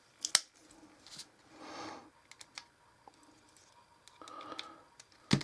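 Sharp clicks and short rubbing noises from a Ganzo axis-lock folding knife being handled and worked to check its blade play, with the blade turning on a dry, unlubricated pivot. The loudest click comes just before the end.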